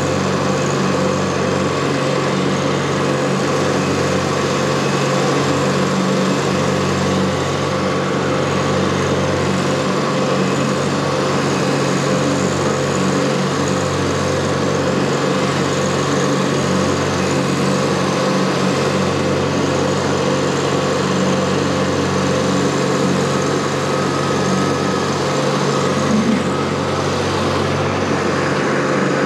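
TYM T264 compact tractor's diesel engine running steadily at working speed while it drives and pulls a 5-foot PTO finish mower cutting grass.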